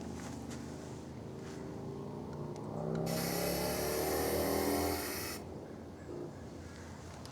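Aerosol can of automotive enamel spray paint hissing in one burst of about two and a half seconds near the middle, over a low hum, as a light coat goes onto a metal saw blade insert.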